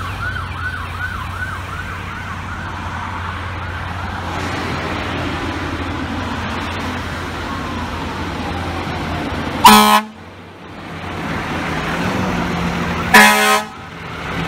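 Fire engine siren sounding in a fast rising-and-falling yelp that then slowly winds down in pitch, over the truck's low engine rumble. Two loud air-horn blasts, each under half a second, follow about three and a half seconds apart.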